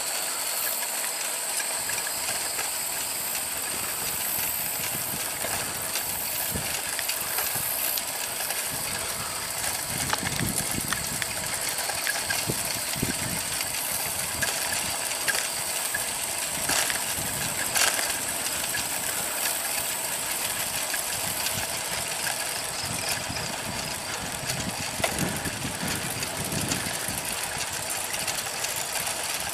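Bicycle rolling along an asphalt path: steady tyre and drivetrain noise with a constant high hiss and scattered small clicks and rattles, plus low gusts of wind on the microphone.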